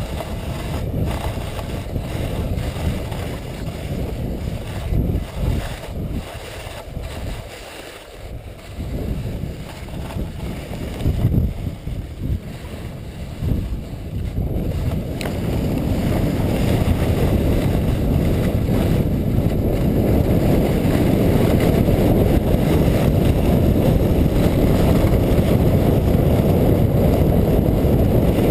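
Sled runners rumbling and scraping over groomed snow, with wind on the microphone, heard muffled. Patchy, with dips and a few knocks, while the sled runs slowly, then a steady, louder rush from about halfway as it picks up speed.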